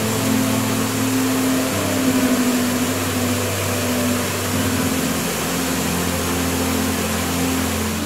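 Steady rushing of a waterfall, with soft instrumental music underneath: sustained low notes that change every second or two.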